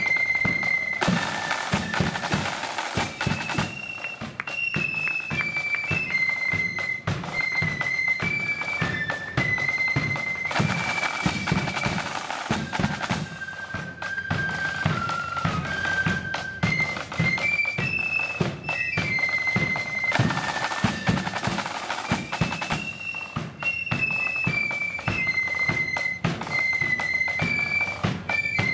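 Marching blood-and-thunder flute band playing: flutes carry one high melody over rattling snare drums and a bass drum, with cymbal crashes swelling in about every ten seconds.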